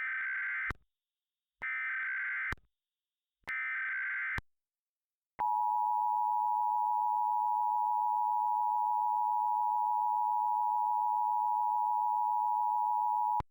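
Emergency Alert System tones: three short warbling data bursts of the SAME header, then the steady two-tone attention signal (853 and 960 Hz together) held for about eight seconds and cut off sharply. This sequence opens a new alert message.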